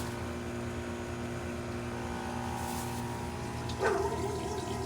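Water running steadily down a freshly cleared drain line, the sign that the clog has been opened, over a steady machine hum. About four seconds in, a short wavering whine rises over it.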